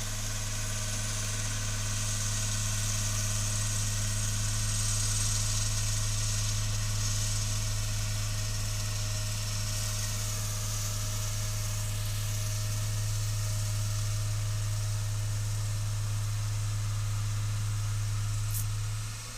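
Old road roller's engine running steadily with a constant low hum.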